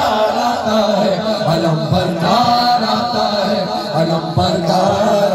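Voices chanting a noha, a Shia mourning lament, in long held notes.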